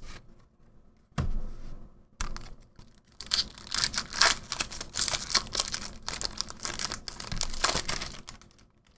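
A Double Masters booster pack wrapper being torn open and crinkled by hand. A couple of soft thumps come first, then dense crackling from about three seconds in until near the end.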